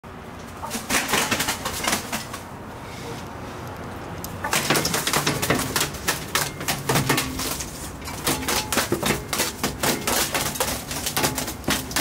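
Gulls flapping and scrambling on a window ledge: a busy clatter of wingbeats and of feet and beaks tapping the sill.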